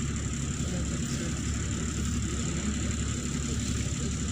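Interior sound of a Neman city bus with its diesel engine running: a steady low drone with a faint steady high whine above it.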